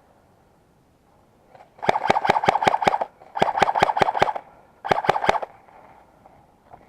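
Electric airsoft gun firing on full auto in three bursts, the first two about a second long and the last about half a second, each a rapid even string of sharp shots over the whir of the gearbox motor.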